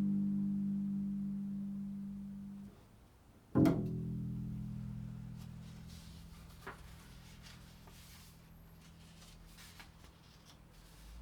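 Low notes on a plucked string instrument, improvised: a held note rings and fades until it is stopped about three seconds in. Another low note is then plucked and left to ring out slowly.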